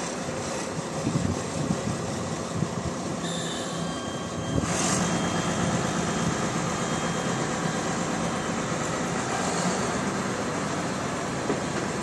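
Diesel engine of an XCMG XS223J single-drum road roller running steadily, with a short hiss about five seconds in.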